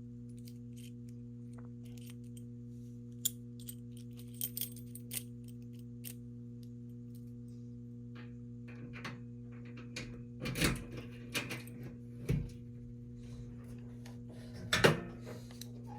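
A steady low electrical hum with scattered small clicks and light metallic clinks, and a few louder knocks or handling bumps in the second half.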